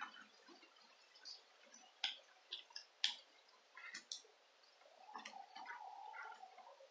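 Plastic headphone headband parts being handled and fitted together by hand: light rubbing with scattered small clicks, and a few sharper snaps about two, three and four seconds in.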